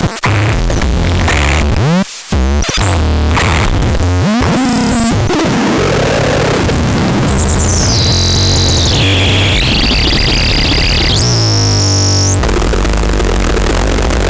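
Synthesizer making harsh, noisy electronic tones with sliding and stepping pitches, loud throughout. A brief dropout comes about two seconds in. Later a high whistling tone steps down and back up before the sound changes abruptly.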